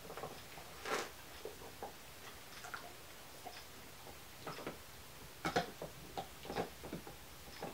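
A dog gnawing on a chew bone, heard as faint, irregular clicks and crunches, with a cluster of louder ones a little past halfway.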